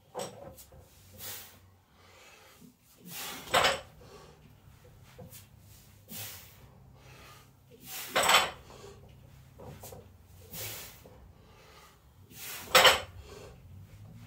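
Barbell with iron weight plates clanking: three loud metallic clanks about four and a half seconds apart, with lighter knocks and rattles between them.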